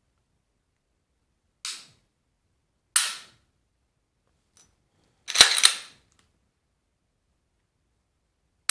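Sharp metallic clicks of a Glock 19 being dry-fired: single clicks of the Suarez flat-faced trigger breaking and the striker falling, and a quick double clack about halfway through as the slide is racked back and released to reset the trigger.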